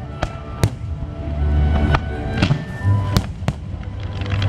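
Aerial fireworks shells bursting, several sharp bangs and cracks in quick succession, over music playing along with the show.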